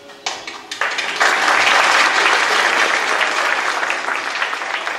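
A crowd applauding: a few scattered claps at first, swelling into full applause about a second in, then slowly tapering off.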